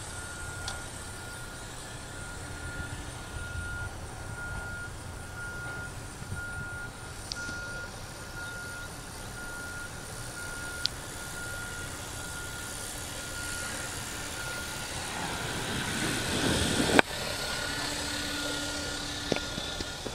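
Radio-control helicopter running in flight, with a steady high whine, while a short beep repeats at a steady pace. Near the end the noise swells and ends in a sharp knock.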